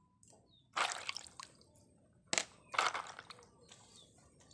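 Machete blade worked against a log, two scraping strokes about a second and a half apart.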